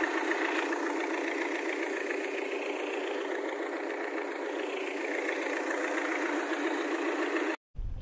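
Small fishing boat's engine running steadily while the boat is under way, then cutting off suddenly near the end.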